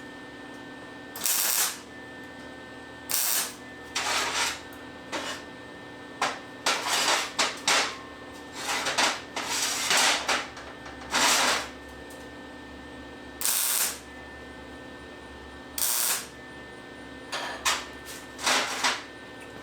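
Grinder taking down excess MIG weld on a stainless-steel base in repeated short passes, each a loud gritty burst under a second long over the tool's steady running hum.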